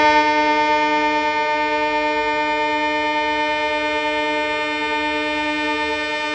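WDP-4D diesel-electric locomotive's horn sounding one long, unbroken blast at a steady pitch, several tones together. It is a warning to people crossing the tracks ahead of the approaching train.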